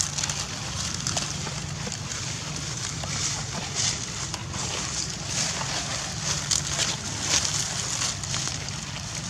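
Dry fallen leaves rustling and crackling as they are walked over, with irregular crisp crackles over a steady low rumble.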